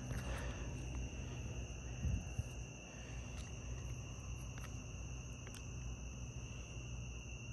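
Steady chorus of night insects, two unbroken high tones holding throughout, with a soft low thump about two seconds in.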